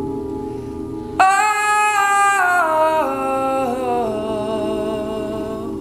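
Men's a cappella group singing a closing chord. The voices hold a sustained harmony, and about a second in a high lead voice comes in loudly over it and steps down in pitch note by note. The whole chord eases off toward the end.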